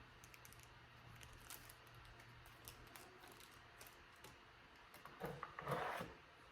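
Faint handling of boxed accessories, with light clicks and taps, and a brief rustle of packaging about five seconds in.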